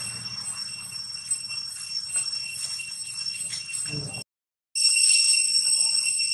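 Cicadas droning steadily with a high-pitched, ringing tone, broken by a half-second of silence about four seconds in. Faint rustles of dry leaves sound under the drone.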